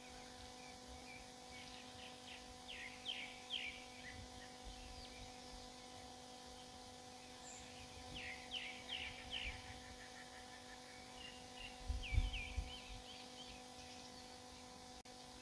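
Small birds calling in three short bursts of quick falling chirps, over a faint steady hum. A brief low rumble, about twelve seconds in, is the loudest moment.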